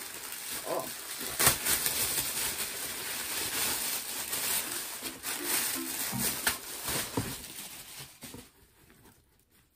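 Thin plastic packaging bag rustling and crinkling with sharp crackles as it is handled and opened, dying down about eight seconds in.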